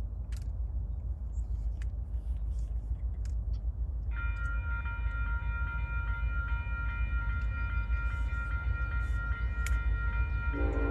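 Freight locomotive's Nathan K5LLA five-chime air horn sounding a steady chord, starting about four seconds in and held to the end, over a low rumble of the approaching train.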